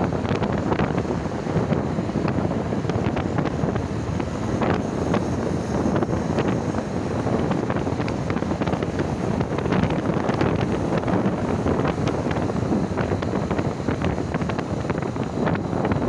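Wind rushing over the microphone of a camera moving along with a group of cyclists, a steady loud noise with scattered small clicks.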